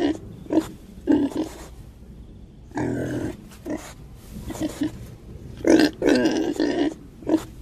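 Pigs grunting: a string of short grunts, with longer drawn-out ones about three seconds in and again around six seconds.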